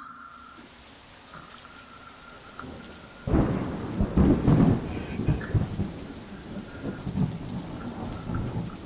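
Rain falling, with a long rumble of thunder that breaks in about three seconds in and keeps rolling and surging.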